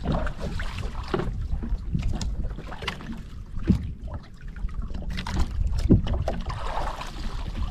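Water sloshing against the hull of a small outrigger boat at sea, with wind rumbling on the microphone. A few sharp knocks and clicks break through, the loudest about six seconds in.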